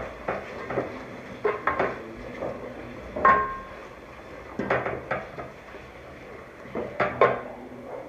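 Metal utensil knocking and scraping against a cooking pot while stirring, with about eight irregular clinks; the loudest, about three seconds in, rings briefly.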